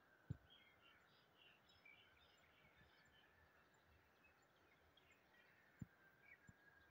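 Near silence with faint birds chirping in the background and two soft low thumps, one just after the start and one near the end.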